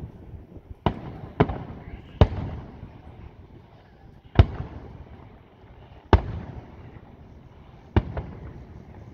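Aerial fireworks shells bursting: six sharp bangs at uneven intervals, each followed by a short echoing tail, the loudest about four seconds in.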